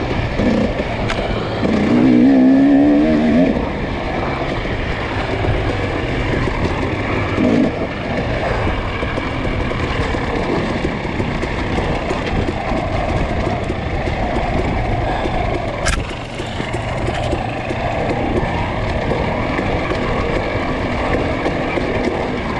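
Off-road dirt bike engine running hard on a trail, the pitch rising and falling with the throttle. There is a louder burst of revving about two seconds in and a single sharp knock about two-thirds of the way through.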